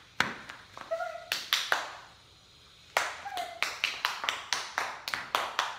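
Sharp slaps of flip-flops on a hard tiled floor mixed with hand claps, a few at first, then a quick run of them at about four to five a second after a short lull.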